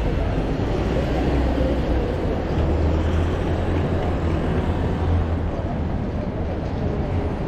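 Busy city street ambience: a steady low rumble with a constant wash of street noise.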